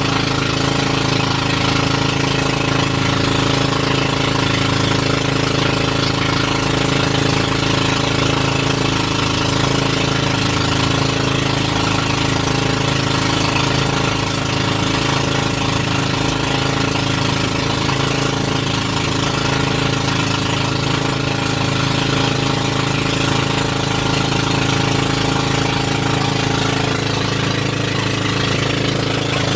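An engine running steadily at one speed, a continuous loud drone whose pitch does not change.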